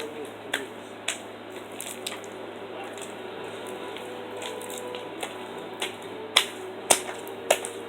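Sticky homemade slime being mixed and squished by hand, with a series of sharp clicks and pops. Three louder pops come near the end.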